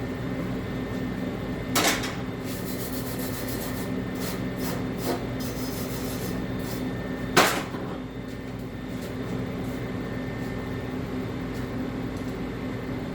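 Steady mechanical hum with two sharp knocks, about two seconds in and again about seven seconds in, and a few light ticks between them.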